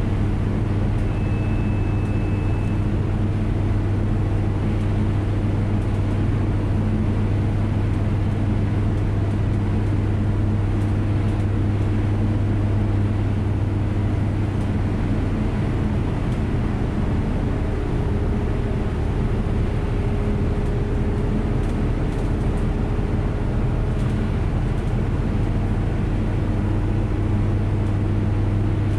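Bus driving steadily along an open road, heard from inside: a constant low engine and drivetrain hum over even road and tyre noise.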